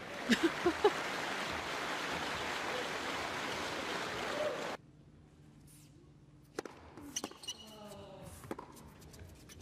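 Arena crowd applauding and cheering after a point, with a few shouts at the start; the applause cuts off abruptly about halfway through. A quieter stretch follows, with a few sharp knocks of a tennis ball bounced on the court before the serve, and faint voices.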